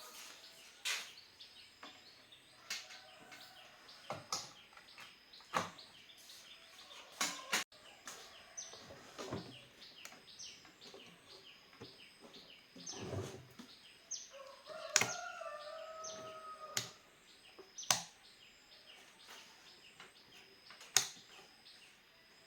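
Sparse sharp clicks and knocks, about ten spread over the stretch, from small objects being handled. A brief faint pitched call sounds in the background about two-thirds of the way through.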